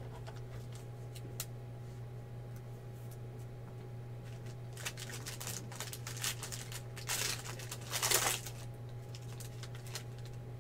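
Foil trading-card pack crinkled and torn open, the rustling loudest about seven to eight seconds in, after a few light clicks of cards being handled. A steady low hum runs underneath.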